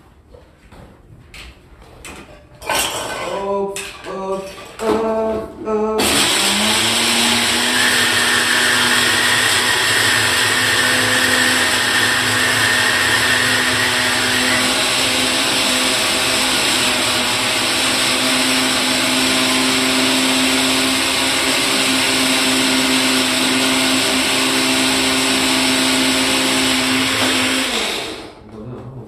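Countertop blender running at full speed, blending a jar of yellow fruit. The motor spins up sharply about six seconds in, holds a steady whirring hum for over twenty seconds, and cuts off near the end.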